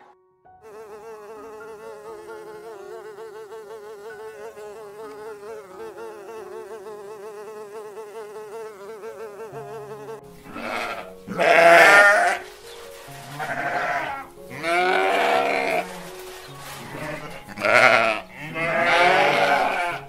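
A bee buzzing steadily, its pitch wavering quickly, for about the first ten seconds. Then sheep bleating: five or six loud bleats in the second half.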